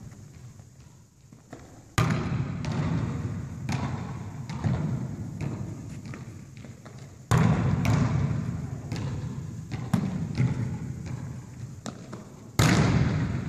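Volleyballs being struck and hitting the floor during a training drill in an echoing gymnasium: three loud smacks about five seconds apart, each ringing on in the hall, with lighter knocks and footfalls between them.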